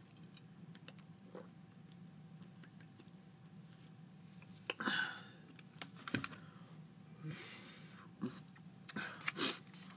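Drinking from a plastic soda bottle: scattered small clicks, crackles and swallows, with a denser cluster about five seconds in and again near the end, over a steady low room hum.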